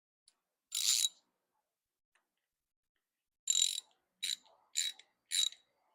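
Five short hissing bursts of pressurized gas from a nozzle, each with a thin whistle in it, as carburetor parts are sprayed or blown clean. One burst comes about a second in, then four come in quick succession near the end.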